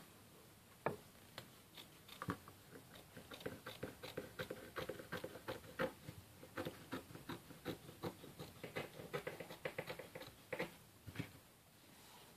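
Scissors cutting through felt: a long run of short, quick snips, sparse at first and coming thick and fast through the middle.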